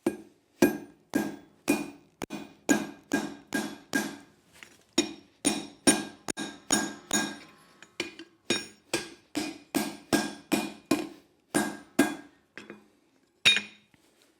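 Hand hammer striking over the anvil, about two blows a second, each with a bright ringing note. The blows are peening over the rivet that joins the two halves of leaf-spring scroll tongs at the boss. There is a short pause near the end before a last blow.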